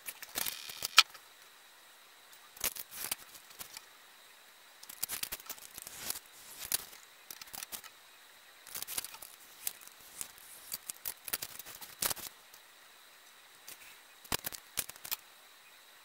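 Printed paper pattern sheets being handled, slid and pressed flat on a cutting board: crisp paper rustles and light taps in short irregular bursts, with quiet gaps between.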